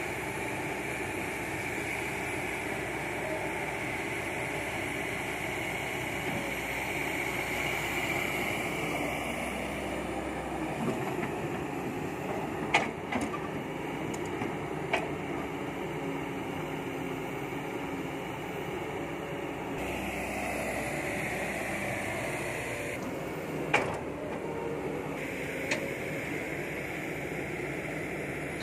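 Kobelco SK200-8 hydraulic excavator's diesel engine running steadily under load while digging and loading soil, with a high whine that comes and goes. A few sharp knocks stand out partway through.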